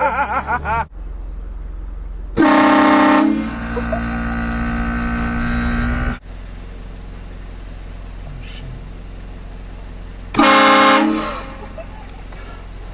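Train horn blasting a multi-tone chord twice. The first blast is very loud for about a second, then sounds on more weakly until about six seconds in. The second is a short, loud blast near the end. A steady low hum runs between the blasts.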